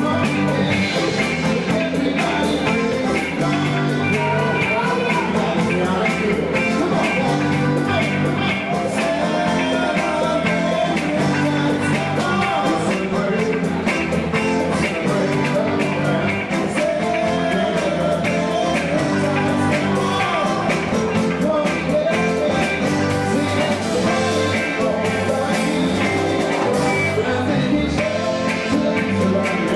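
Upbeat rock-and-roll style music with a steady beat and a singing voice.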